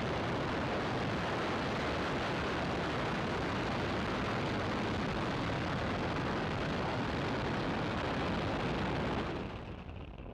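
Falcon 9 rocket's nine Merlin 1D first-stage engines during liftoff and early ascent: a loud, steady, rumbling roar that cuts off sharply about nine seconds in.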